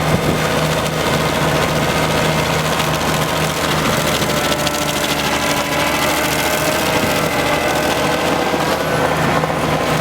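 Stump grinder running steadily and loudly, a continuous engine sound with no let-up.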